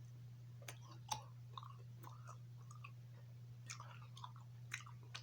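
A person chewing a bite of steak with the mouth closed: faint scattered mouth clicks and smacks, the sharpest a little after a second in, over a steady low hum.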